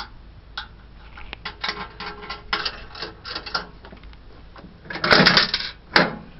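Sixpence coins working a 1960s coin-op biscuit vending machine: a run of small clicks and rattles from the coin mechanism, then a louder clatter about five seconds in and a sharp knock just after as the machine vends.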